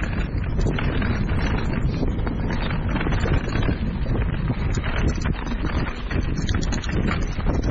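Mountain bike descending a rocky dirt trail: tyres crunching over dirt and stones while the bike rattles and knocks over bumps. Wind buffets the microphone.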